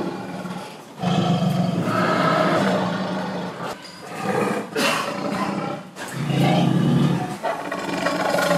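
Several long, drawn-out animal calls in a row, each held at a fairly steady low pitch for one to two seconds, with short breaks between them.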